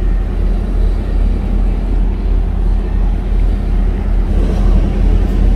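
Water taxi's engine running steadily, a low, even drone heard from on board.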